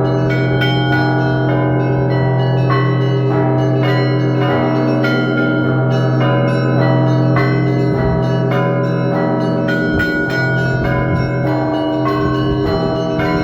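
Russian Orthodox bell ringing by one ringer on a monastery belfry. Quick, overlapping strikes of several smaller bells ring over the long, steady hum of a large bell, with the tones piling up and sustaining between strikes.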